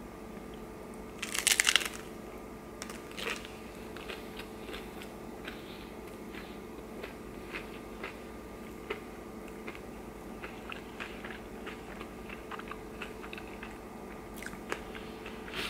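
A crunchy bite into a hard-shell beef taco a little over a second in, followed by close-up chewing with many small crackling clicks. A faint steady hum sits underneath.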